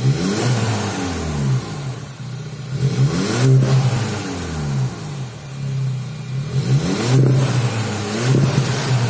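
Audi sedan's tuned quad-tip exhaust, engine idling and blipped several times, the note rising and falling back to idle with each rev; the strongest revs come about three seconds in and again about seven seconds in.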